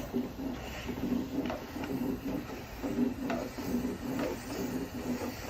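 Dryer vent cleaning equipment working in a blocked vent line: a rhythmic mechanical whirring and knocking, about two to three pulses a second, with scattered clicks of debris.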